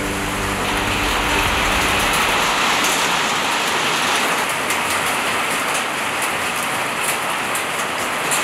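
Heavy rain pouring down, a steady even hiss. A low steady hum under it fades out about two seconds in.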